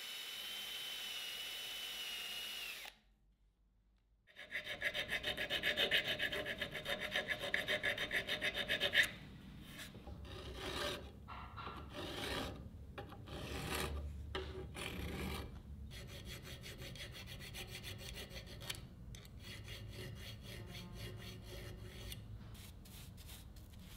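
A wire wheel in a drill spins against the metal chuck of an antique bit brace: a steady hiss with a high whine that dips slightly and stops about three seconds in. After a moment of silence, a flat hand file rasps across the chuck in rapid, rhythmic strokes, loud and bright at first, then lighter and more uneven from about nine seconds in.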